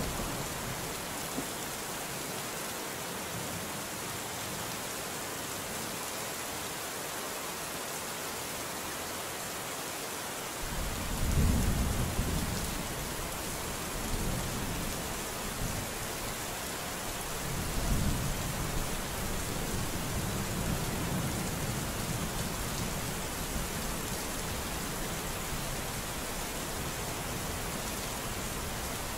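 Steady rain falling, with low rumbles of thunder starting about ten seconds in and rolling on in several swells, the loudest one shortly after they begin.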